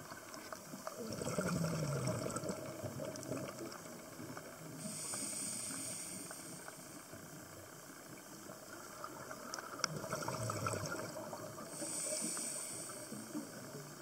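A scuba diver breathing through a regulator underwater: two long bubbling exhalations alternate with two hissing inhalations, about one full breath every six or seven seconds.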